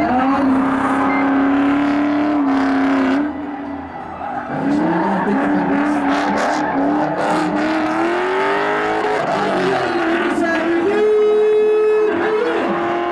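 Ford Mustang drift car's engine revving hard, its pitch rising and falling as it drifts, with tyre squeal. The engine eases off for about a second a few seconds in, then holds a steady high note near the end.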